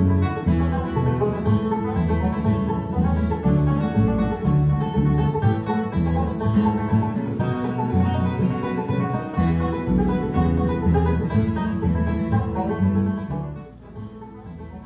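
Background instrumental music, dropping away near the end.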